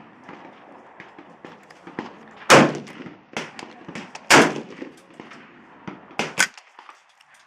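Two loud gunshots about two seconds apart, each with a short ringing tail, followed by a couple of lighter sharp cracks near the end.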